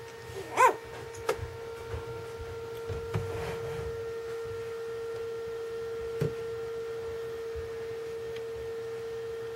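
A steady single-pitch hum runs throughout. About half a second in, a three-day-old Golden Retriever puppy gives one short squeak that rises and falls in pitch, and a few faint clicks follow later.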